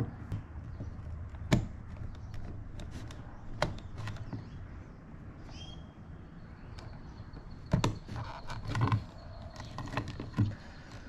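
Handling noise from a plastic electrical junction box being closed up: scattered clicks and knocks as the wired faceplate, with its socket and switch, is pressed into place, with a cluster of knocks around eight to nine seconds in. A low steady hum runs underneath.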